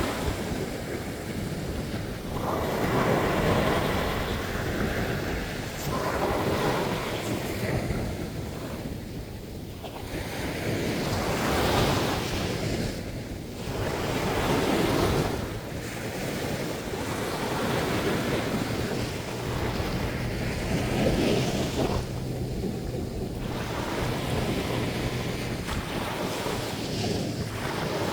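Sea surf breaking and washing up on a sandy beach, swelling and ebbing every few seconds, with wind buffeting the microphone.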